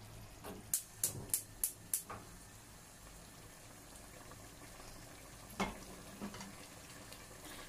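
Mutton gravy simmering faintly in an open pressure cooker, boiling off its remaining water. A quick run of about five sharp clicks comes in the first two seconds, and one more later.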